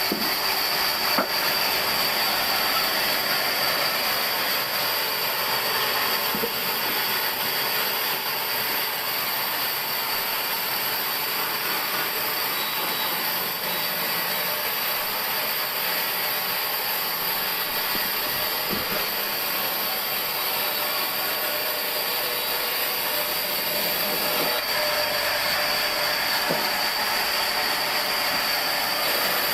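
Sawmill machinery running steadily: a continuous mechanical noise with a high steady whine, and a few faint knocks.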